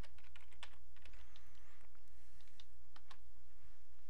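Quick keystrokes on a computer keyboard, typing a search term, thinning out after about two and a half seconds, over a steady low hum.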